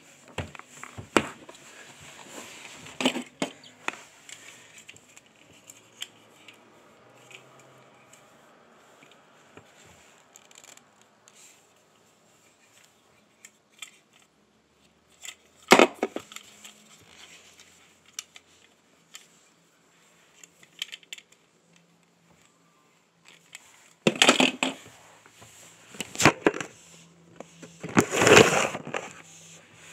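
Scattered knocks, clicks and rustles from things being handled, in a cluster at the start, one sharp knock about halfway through, and several louder bursts near the end.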